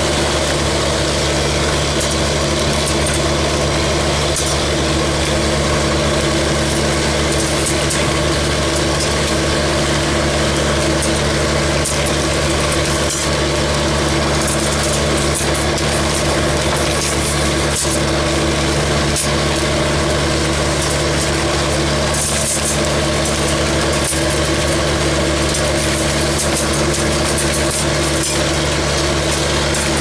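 Industrial vacuum running at a steady, loud hum while its large corrugated metal hose sucks up lava rock, with scattered clicks and rattles of stones striking the hose.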